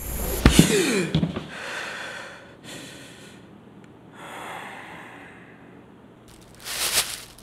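Heavy gasping and breathing: a loud burst with a falling, voiced sound right at the start, then several softer breaths, and another sharp gasp near the end.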